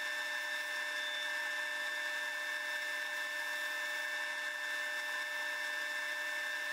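Robust wood lathe running with a steady high whine, with the hiss of a beading tool cutting the spinning hickory blank.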